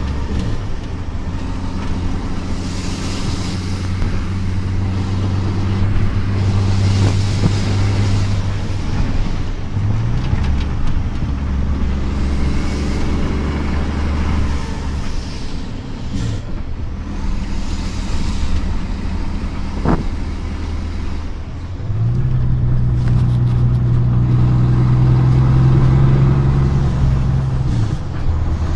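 Renault Magnum 480 DXi truck's six-cylinder diesel running under load through an open, straight-through exhaust, heard from inside the cab while driving. The deep engine note steps down in pitch about ten seconds in and again around sixteen seconds as the automatic gearbox changes gear, then rises and grows louder about two-thirds of the way through before dropping again near the end.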